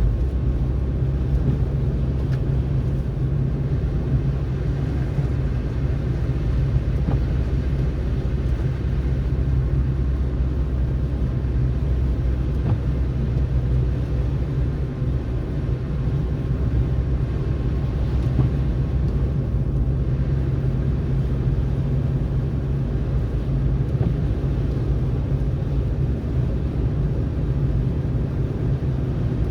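Car driving through a snowstorm: a steady low rumble of road and engine noise that holds even throughout.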